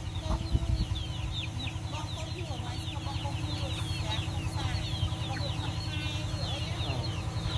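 Chickens peeping and clucking: a steady run of short, high, falling peeps, several a second, over a steady low hum.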